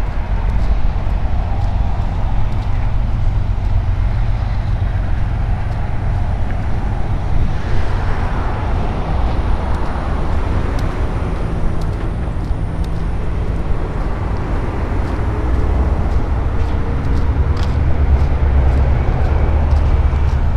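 Roadside ambience picked up by a camera carried while walking: a steady low rumble, swelling slightly about eight seconds in and again near the end, with faint scattered clicks.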